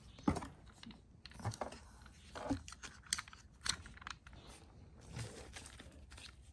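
Hands handling a plastic Sony Bluetooth shooting grip and unboxing items: about half a dozen light clicks and taps, spread over a few seconds.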